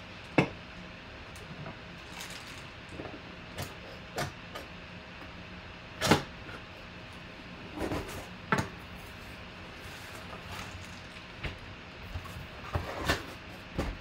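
A cardboard mailer box being handled and its lid lifted open: a series of separate knocks, taps and scrapes of cardboard, the loudest about six seconds in, with a few more close together near the end.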